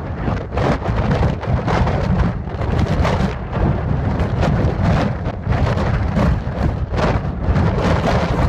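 Heavy rainstorm: a loud, continuous rushing of rain with a deep rumble and many sharp hits mixed in.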